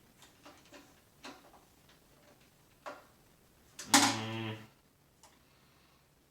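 Handling of a new vacuum cleaner's parts and bag: a few light clicks and knocks, then a short, loud buzzy rasp about four seconds in.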